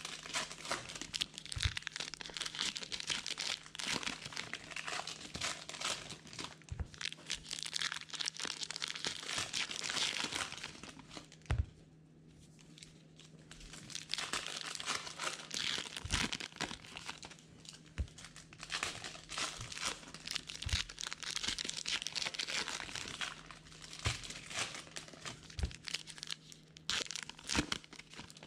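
Trading-card pack wrappers from 2020 Topps Gypsy Queen baseball being torn open and crinkled, with a short pause about twelve seconds in. A faint steady low hum runs underneath.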